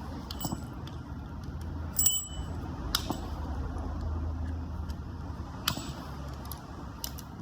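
Metal parts and hand tools clinking during work on a car's AC compressor: a handful of sharp clicks and knocks, one about two seconds in with a brief metallic ring, over a steady low hum.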